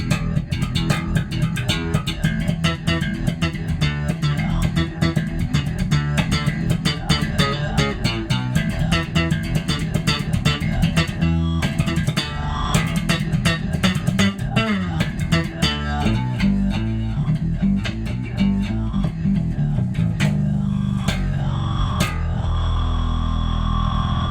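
Electric bass played slap-style through a fuzz synth bass effect, with a clean, fat low end kept underneath: rapid percussive slaps and pops, ending on a long held note.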